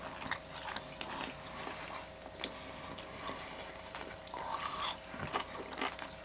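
Close-up chewing and biting of sea grapes and sushi: small crunches and wet pops as the sea grape beads burst, with one sharper click about two and a half seconds in.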